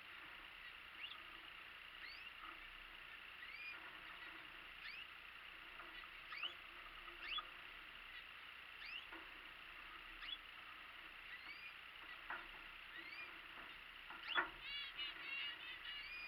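Small aviary finches calling: short rising chirps, roughly one or two a second, breaking into a quick run of repeated notes near the end. One sharp click, the loudest sound, comes just before that run.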